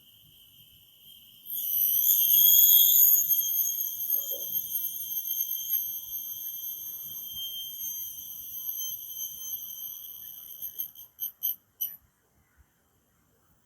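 Cricket trilling in one continuous high-pitched buzz that grows loud about a second and a half in, then breaks into a few separate chirps and stops near the end.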